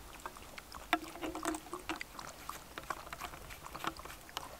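Dog lapping water from a wooden bowl: many quick, irregular wet laps and small splashes.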